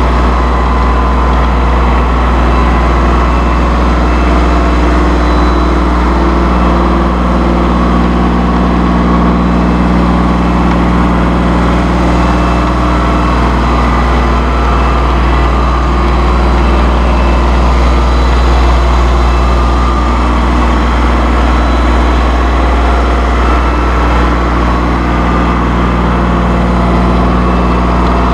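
2005 New Holland TC30 compact tractor's diesel engine running steadily with the throttle up at PTO speed.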